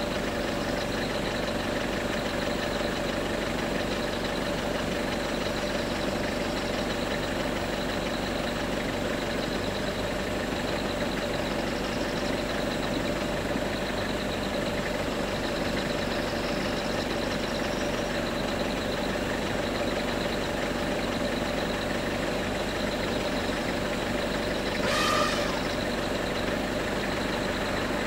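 A vehicle engine idling steadily. A short, sharp sound is heard near the end.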